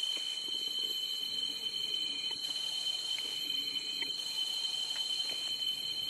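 Forest insects droning steadily, a shrill high hum held at two pitches, with a few faint short chirps or clicks over it.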